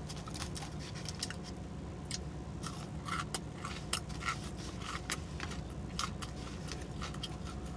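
Close-up chewing and lip-smacking: irregular wet clicks and smacks from a mouth eating, over a steady low hum.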